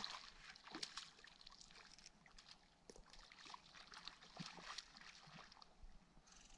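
Faint small waves lapping and trickling at the lake's edge, a light scatter of irregular little splashes and ticks.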